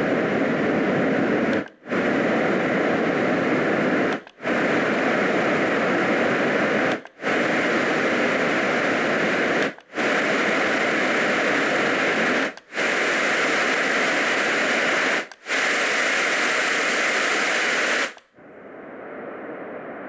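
LectroFan Evo white noise machine stepping through its noise settings: about seven stretches of steady hiss, each around two and a half seconds long, split by brief drops to silence as the next sound is selected. Each stretch is a little brighter and hissier than the one before, moving from deeper noise toward white noise. Near the end it changes to a quieter, duller sound.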